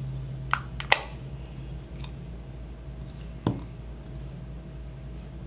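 A handful of short, sharp plastic clicks and taps from the Edifier E30 Spinnaker's remote control being handled as its cap is fitted back onto its base. The loudest click comes about a second in, and the last about three and a half seconds in.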